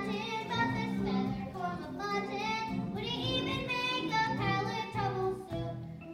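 Child voices singing a musical-theatre song over instrumental accompaniment.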